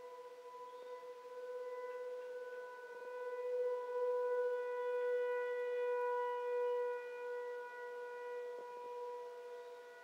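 Nuclear power plant emergency warning siren sounding one steady, unwavering tone during its routine monthly test. It swells louder for a few seconds in the middle and then eases back.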